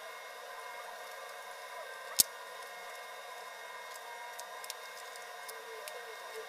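Red-handled wire cutters snapping through barbed wire once, a single sharp snap about two seconds in, followed by a few faint metal clicks as the wire is handled, over a steady hiss and hum.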